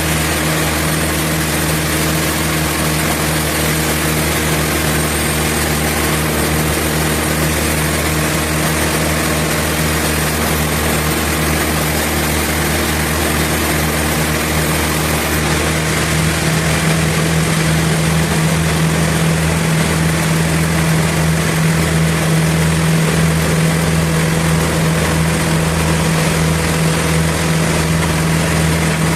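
Sawmill machinery running with a steady hum of constant pitch and a broad noise over it; about halfway through the sound shifts slightly and gets a little louder.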